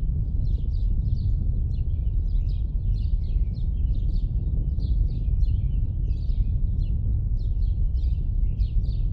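Birds chirping continuously in many short, overlapping chirps, over a steady low rumble.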